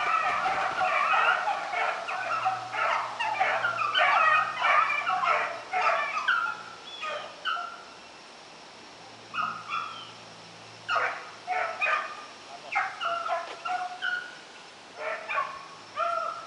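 A pack of rabbit hounds baying on a rabbit's scent trail during the chase, several dogs at once. The barks come thick and overlapping at first, then thin out after about seven seconds to scattered single barks.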